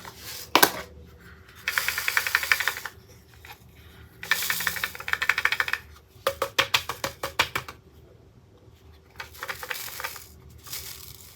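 Diamond painting drills rattling in a 3D-printed plastic tray as it is shaken to turn them and line them up. There are two bursts of dense, rapid rattling, then looser runs of separate clicks.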